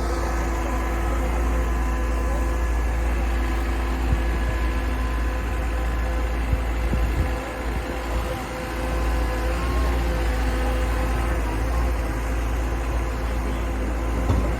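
Excavator's engine running steadily with a low rumble and a constant hum, while it places rocks for riprap along a riverbank; a few short knocks come through, about four seconds in, near the middle and near the end.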